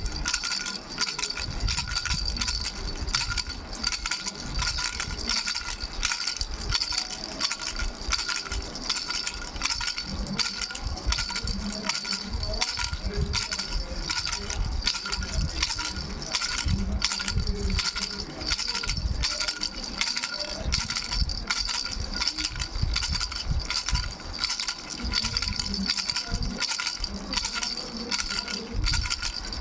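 Baby rattle with three bells shaken continuously: a fast, even jingling over a steady bell ring.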